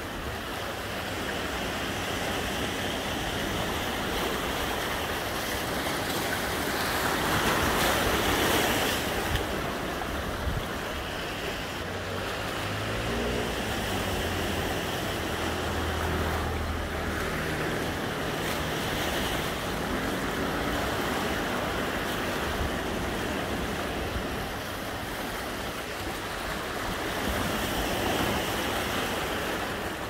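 Ocean waves and surf washing steadily, swelling louder about eight seconds in.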